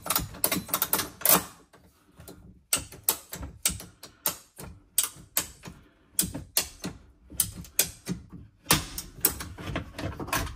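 Hand pipe cutter being worked around a pipe in short strokes: a run of sharp clicks and scrapes, a few a second, with brief pauses.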